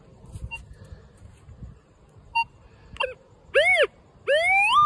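Minelab Vanquish 540 metal detector in pinpoint mode. A couple of short single beeps, then a tone that swoops up and back down in pitch as the coil passes over the target, then climbs to a steady high tone: the rising pitch marks the coil closing in on the buried target.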